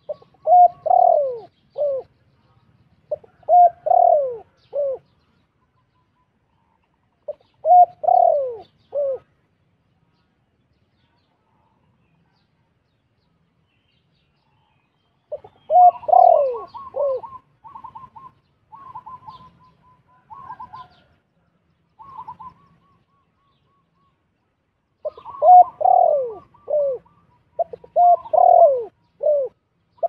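Spotted doves cooing in short phrases of three or four falling notes, each phrase a few seconds apart. Around the middle comes a run of quicker, higher notes.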